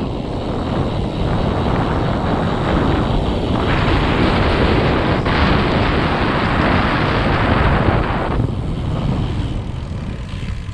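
Heavy wind buffeting on a GoPro's microphone, with tyre rumble, as a road bike coasts fast downhill on a concrete road. The rush is loudest in the middle and eases off about eight seconds in.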